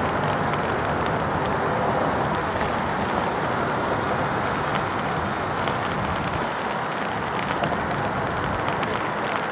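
Steady jet engine roar of an EVA Air Boeing 777 on approach, with faint scattered ticks of rain.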